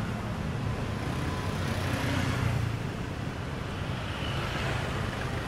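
Steady low engine rumble with traffic-like noise, swelling a little about two seconds in.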